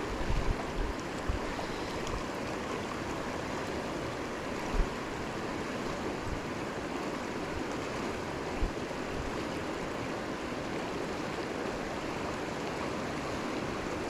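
Gunnison River water rushing steadily. A few brief low bumps on the microphone come through it, the clearest about five seconds in.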